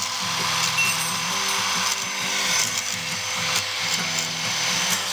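Angle grinder running, its abrasive disc grinding a steel wrench, a steady grinding hiss with a motor whine, over background music.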